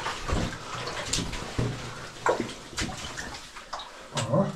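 Footsteps splashing and sloshing through shallow water on the floor of an old mine adit, in irregular steps.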